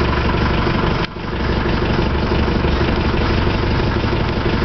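Land Rover 200Tdi four-cylinder turbodiesel engine idling steadily, with a brief dip in level about a second in.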